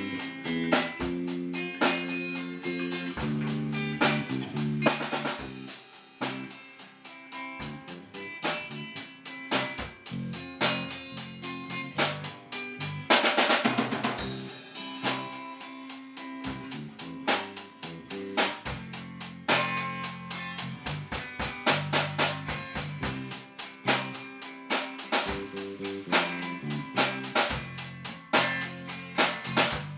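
A drum kit played in a steady rhythm with an electric bass guitar playing along underneath. A little before halfway, a cymbal rings out for about two seconds.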